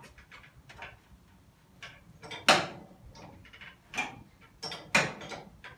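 A bottle jack pumped slowly under a classic Mini pickup's floor, with a series of irregular sharp clicks and metal creaks as the body shell is lifted; the loudest come about two and a half and five seconds in.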